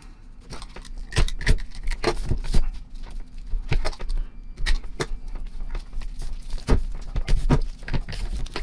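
Old electrical tape being peeled and torn off the steel anvil of an air impact wrench: irregular crackling and ripping with scattered sharp clicks as the tape and the tool are handled.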